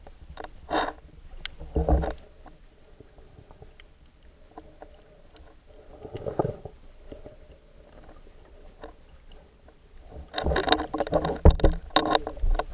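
Water sloshing and bubbling heard through an underwater camera as a snorkeler swims, in irregular bursts that grow louder and busier near the end, with a few sharp knocks.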